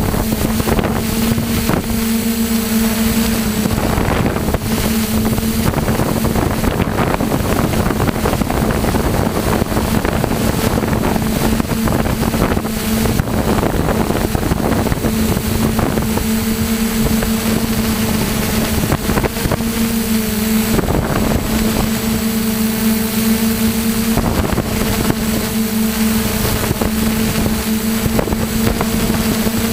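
Multirotor drone's propellers running with a steady hum of unchanging pitch, heard from the drone's own camera, with wind rushing and gusting on its microphone.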